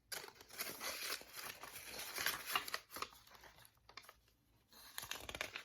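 Paper rustling and crinkling as a handmade journal's pages and an envelope insert are handled, in irregular rustles with a short lull a little past halfway.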